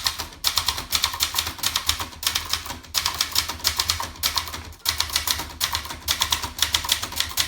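Brother Charger 11 portable manual typewriter being typed on briskly: a quick run of key strikes, several a second, with a few short pauses between bursts.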